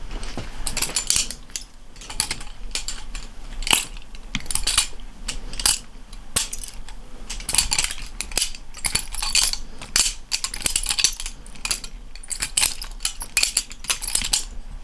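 GoFlipping budget balisong with stainless steel handles being flipped: a rapid, irregular string of metallic clacks and clinks as the handles and blade swing round and knock together.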